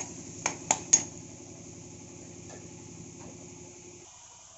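A stirring spoon knocks sharply against a kadai three times in quick succession as garlic-ginger-onion paste is sautéed in oil. A low steady hum runs underneath and cuts off suddenly about four seconds in.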